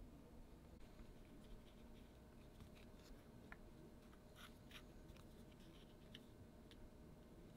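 Near silence, broken by faint scattered clicks and rubs from a vinyl figure and its clear plastic stand being handled in the hand, mostly in the second half.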